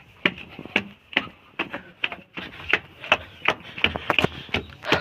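Footsteps of a person in rubber flip-flops climbing concrete stairs: a quick, uneven run of slaps and scuffs, several a second.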